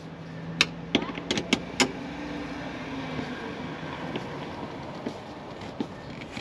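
Metal screwdriver tip clicking and clinking against a hose clamp as it is turned, five or so sharp clicks in the first two seconds, then a steady low rumble in the background.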